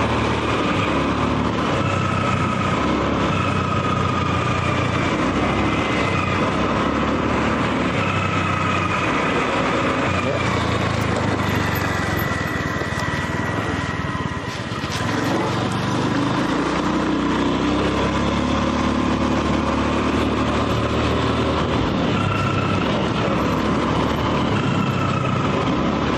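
Vehicle engine running while driving along a road, its pitch rising and falling with speed over steady road noise. It eases off briefly about halfway through.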